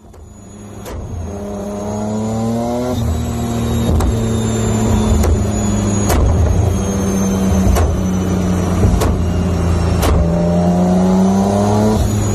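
Toyota Supra MK4's Greddy TD05 twin-turbo 2JZ straight-six running on a chassis dyno through a Greddy titanium exhaust, fading in at the start, the revs rising gently twice. Sharp clicks come about once a second throughout.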